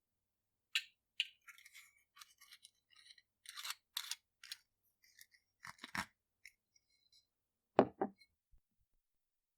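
Clicks and scrapes of a glass bottle's screw cap being handled and turned, in irregular clusters, followed by two low knocks close together near the end.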